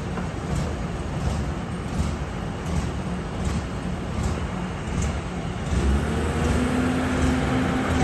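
Heavy diesel truck engine running as the truck pulls a loaded low-bed trailer slowly forward, with a deep, steady rumble. About six seconds in, a steady hum joins and the sound gets a little louder as the engine works harder.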